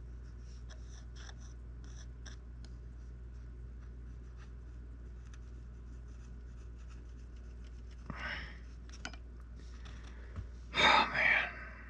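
Faint scratching and light ticks of a metal sculpting tool working a thin strip of modelling clay on a wooden board. Near the end comes a louder, brief rush of noise, twice in quick succession.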